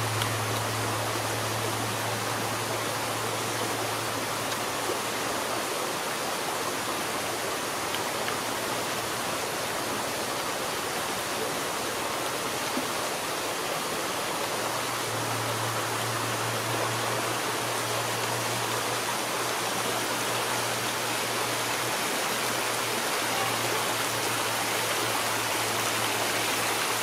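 Steady, even rushing noise throughout, with a low hum under it for the first few seconds and again from about halfway on.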